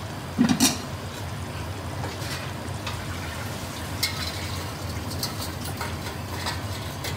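Chicken tikka pieces frying in their own oil in a large aluminium pot on a high flame: a steady low sizzle, the water cooked off and the oil separated out. A brief louder sound comes about half a second in, and a few faint clicks follow later.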